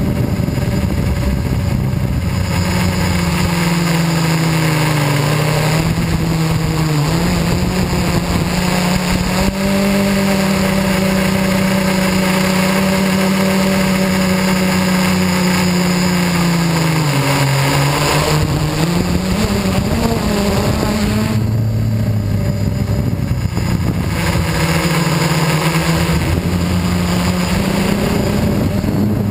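FPV aircraft's electric motors and propellers buzzing loudly, heard from the onboard camera, the pitch shifting up and down with the throttle; it drops about two-thirds of the way through, then climbs again.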